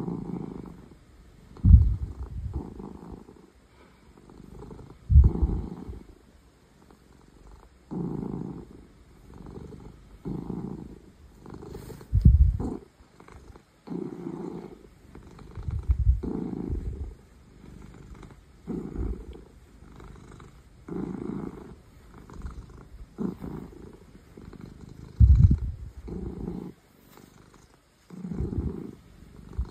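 Ragdoll cat purring loudly while being massaged, the purr swelling and fading with each breath about once a second, some breaths much stronger than others.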